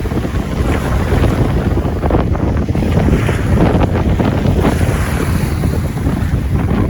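Sea of Azov waves breaking and washing onto the shore, with strong wind buffeting the microphone.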